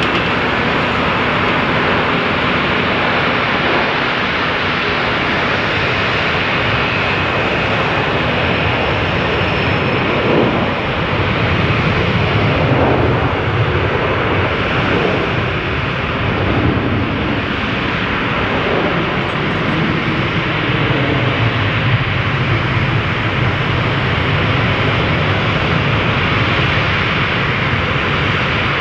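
Jet airliner engines running, a loud steady noise spread over low and high pitches.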